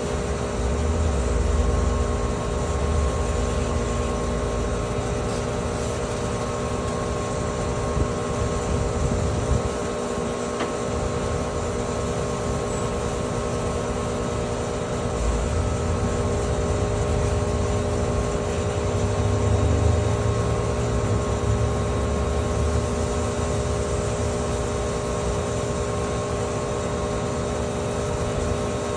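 Steady mechanical hum holding several fixed tones, with a low rumble that swells near the start and again past the middle before easing off.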